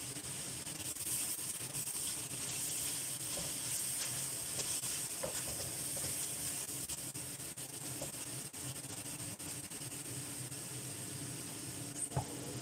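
Celtuce and sliced beef sizzling in a stainless steel wok, with a spatula scraping and tossing the stir-fry, over a steady low hum. A single sharp clack near the end.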